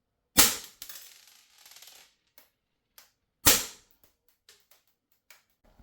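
Two shots from a small CO2-powered air pistol firing steel BBs, about three seconds apart, each dying away quickly, with faint clicks of handling in between.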